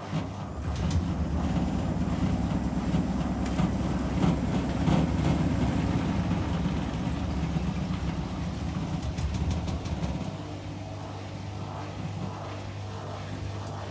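Whirlpool 5 kg washing machine in its final spin, the unbalanced drum rumbling low with scattered knocks. The rumble eases about ten seconds in.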